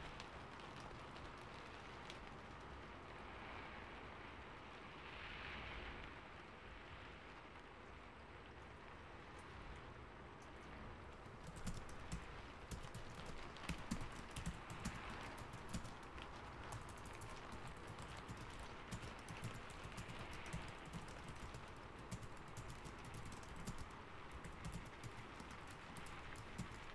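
Computer keyboard typing over a steady soft rain hiss; the typing is sparse at first and turns into dense, rapid key clicks about eleven seconds in.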